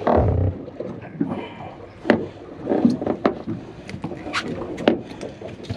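Handling noise as a flounder is unhooked on a boat deck: a low thump at the start, then scattered knocks and sharp clicks, the sharpest about two seconds in and again near the end.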